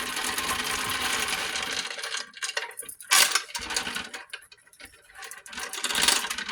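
Brass clock movement and metal parts rattling and clinking as they are handled, with a dense rattle for the first two seconds, a sharp knock about three seconds in, and more clatter near the end.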